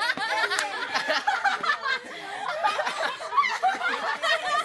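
A teenage boy and girls laughing together, in overlapping giggles and chuckles.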